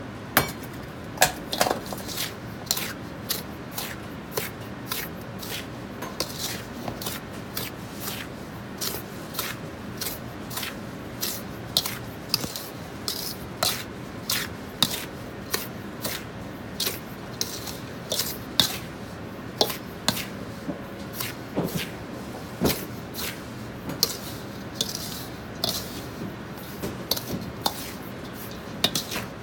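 Metal ladle stirring powdered seasoning salt in a large stainless steel bowl: repeated clinks and scrapes of the ladle against the bowl, about one to two a second.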